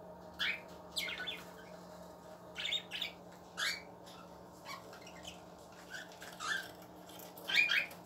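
Budgerigars in an aviary giving short, sharp chirps and squawks, about eight scattered calls with the loudest near the end, over a faint steady hum.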